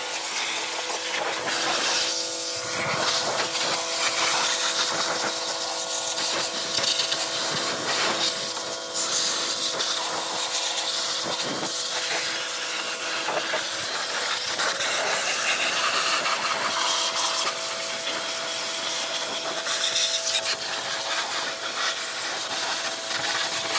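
Pressure washer spraying a high-pressure jet of water onto a generator's metal panels and frame: a continuous hiss and spatter that shifts in tone as the jet moves, with a steady hum underneath.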